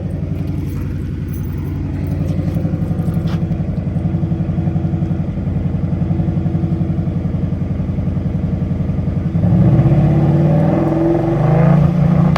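Car engine with a loud aftermarket exhaust idling with a heavy, even pulse, then revved up about nine and a half seconds in and held at higher revs.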